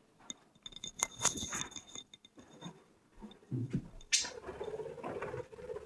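Quiet scattered rustling and soft knocks of someone moving to catch a pet budgerigar, with faint high chirps early on and a short sharp rustle about four seconds in.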